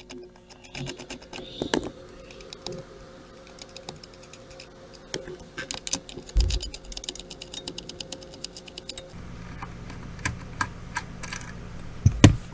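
Socket ratchet clicking in quick runs as the nuts on the brake pedal assembly are backed off, then a few scattered clicks and a loud knock near the end as the last nut comes free.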